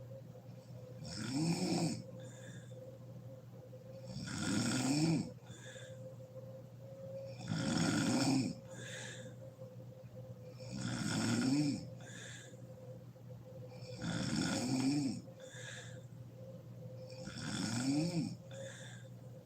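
A sleeping woman snoring, one loud snore on each breath in, about every three seconds and six in all, each followed by a shorter, softer sound on the breath out.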